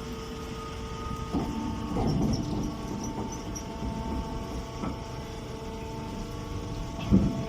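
Hay and straw baling machine running: a steady machine hum with a few knocks, the loudest a double knock near the end.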